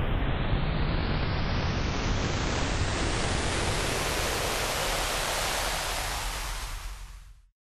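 Steady, loud hiss of noise that grows brighter over the first four seconds and fades out near the end.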